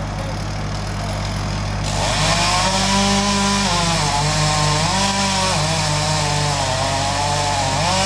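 A chainsaw revs up about two seconds in and cuts into the trunk of a large ash tree, making the felling cut behind the face notch; its pitch dips and recovers several times as the chain bogs down in the wood. A steady engine hum runs beneath it before the cut starts.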